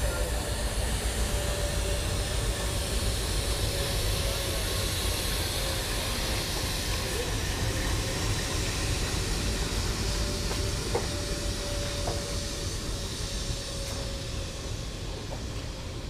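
Jammu Tawi–Barmer Express (14662) sleeper coach rolling slowly into a station: steady rumble of wheels on the track with a hiss and a thin steady tone over it. The sound eases off toward the end as the train slows to a stop.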